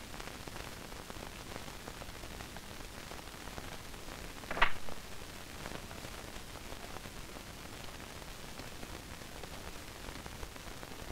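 Steady hiss of an old film soundtrack, with one short sharp sound about four and a half seconds in.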